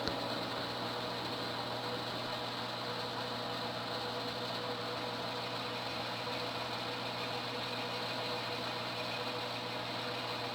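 Homemade wood lathe running steadily with a constant hum, turning a pool cue while a recess for a reinforcing ring is cut. A brief click at the very start.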